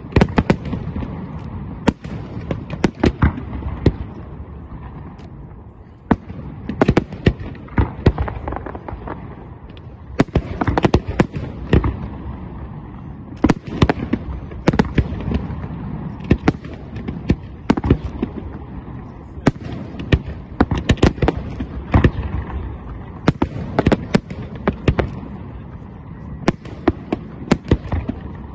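Fireworks display going off: irregular volleys of sharp bangs and crackles coming in clusters every couple of seconds, over a continuous rumble.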